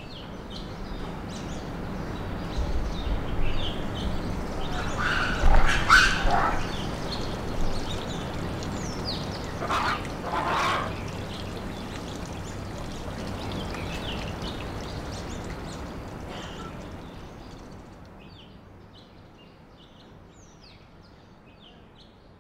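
Outdoor ambience with birds chirping throughout and two louder bursts of bird calls, about five and about ten seconds in. The whole sound fades out near the end.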